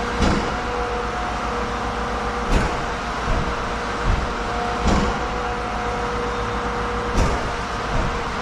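An engine running steadily, with a short clank repeating about every two and a half seconds.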